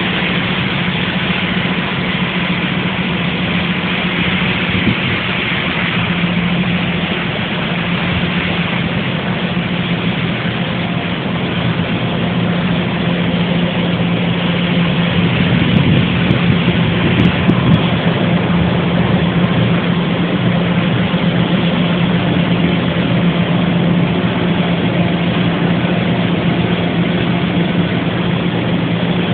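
A large engine running steadily: a constant low drone with a dense hiss above it, swelling slightly about halfway through.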